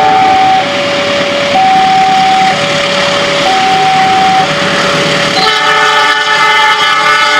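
Level-crossing warning alarm sounding a steady two-tone, high-low pattern, each tone lasting about a second, over the rumble of an approaching train. About five and a half seconds in, a diesel locomotive's air horn cuts in with a loud chord of several notes and keeps sounding.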